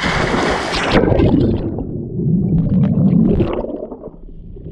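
A grown man jumping into a lake: a loud splash as he hits the water, then about three seconds of muffled churning and gurgling water heard from at or below the surface as he swims, fading near the end.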